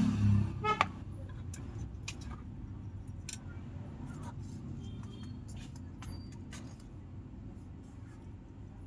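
Scattered light clicks and taps over a low steady hum, typical of small parts and tools being handled on a repair bench. A louder low rumble dies away in the first second.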